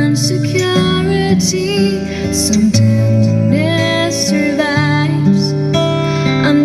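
Slow ballad music with acoustic guitar and a melody line.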